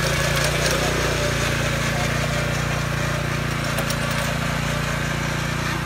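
Honda gas-powered walk-behind tiller's small four-stroke engine running steadily under load as its tines churn the soil.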